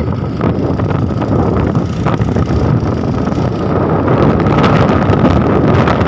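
Wind buffeting a phone's microphone on a moving motorcycle, a steady rushing noise with the bike's running and road noise mixed in.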